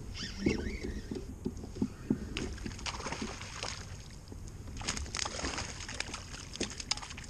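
Water sloshing and splashing at a kayak's side as a hooked bass is fought to the boat and thrashes at the surface, with scattered short clicks and knocks throughout.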